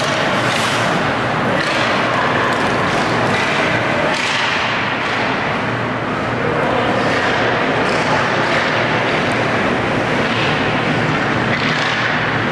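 Ice hockey play heard from rinkside: skate blades carving and scraping the ice in repeated swishes every second or two, over a steady arena din.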